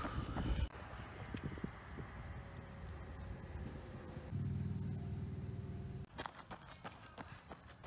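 Faint outdoor ambience with insects chirping in the surrounding fields and a few soft ticks. For a couple of seconds in the middle a steady low hum rises under it, then stops suddenly.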